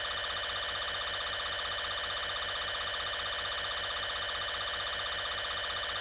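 Steady electronic alarm drone, a buzzy tone held at an even level under a mock nuclear-attack warning broadcast.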